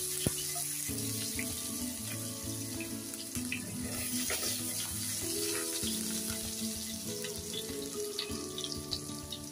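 Chopped garlic sizzling in shallow hot oil in a nonstick kadhai, a steady hiss with scattered small pops, stirred with a silicone spatula. Soft background music plays underneath.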